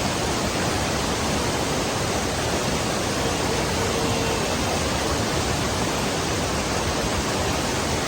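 Waterfall's steady, unbroken rush of falling water.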